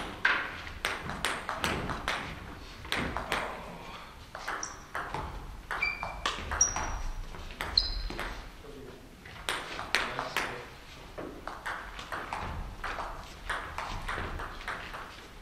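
Table tennis rallies: the ball clicking back and forth off the rackets and the Donic table in quick, irregular runs of sharp pings, with short pauses between points. A few short high squeaks come around the middle.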